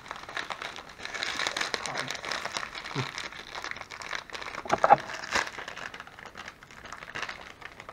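Crinkling and crackling of a small kit packet being handled and pulled at as someone tries to get it open.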